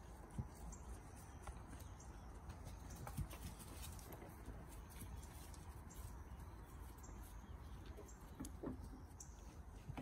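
Goats moving about, with faint scattered hoof steps and small knocks over a low steady background noise.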